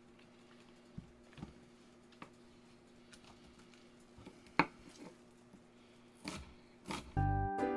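A few sparse, light knife taps on a cutting board as green onions are cut, the loudest about halfway through, over a faint steady hum. Plucked-string background music starts near the end.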